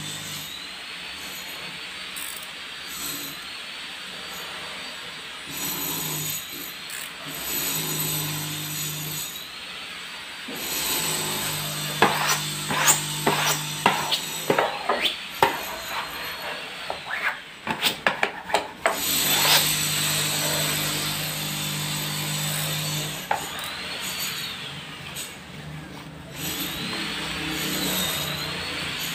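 Plastic wallpaper smoother rubbing and scraping over freshly hung wallpaper in long strokes, with a run of sharp clicks and taps around the middle.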